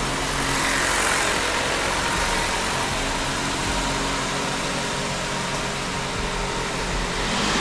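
Car running, with a steady even rush of engine and drivetrain noise.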